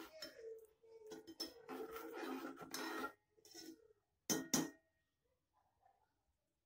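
Metal ladle stirring masala paste fried in oil in a metal pot, scraping against the pot for about three seconds, then two sharp clinks of metal on metal as the ladle knocks the rim.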